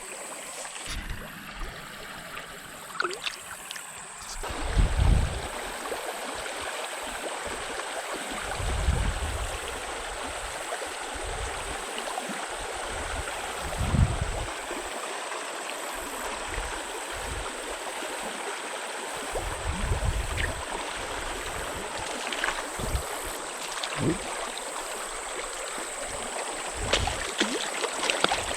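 Small trout stream flowing, a steady rush of water that grows louder about four seconds in. Low rumbles of wind on the microphone come and go.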